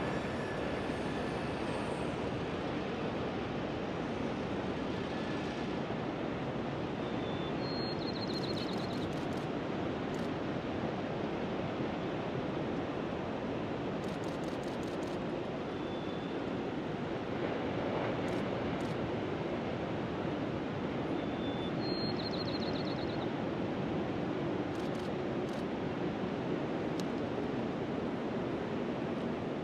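Steady rushing wash of ocean surf and wind, with a diesel freight train, a single EMD GP9 locomotive hauling four empty tank cars, rolling slowly away over a trestle and heard only faintly. Twice, about a third of the way in and again about three-quarters in, a quick run of short high chirps cuts through.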